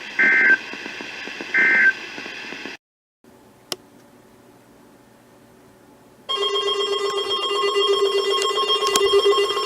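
NOAA Weather Radio SAME end-of-message data bursts: two short, loud, screechy digital bursts about a second apart, marking the end of the warning. After a brief cut to faint hiss with a single click, a steady electronic sound of several held tones starts about six seconds in.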